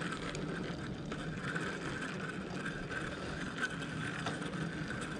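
Bicycle riding along a road: steady rolling and wind noise with a few faint clicks.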